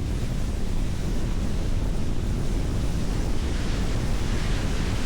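Strong wind buffeting the microphone: a steady, heavy rumbling rush of storm wind.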